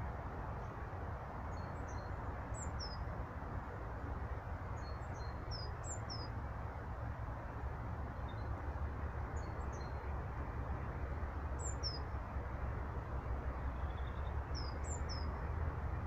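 A small songbird singing about five short, high, chirpy phrases a few seconds apart, over a steady low outdoor hiss and rumble.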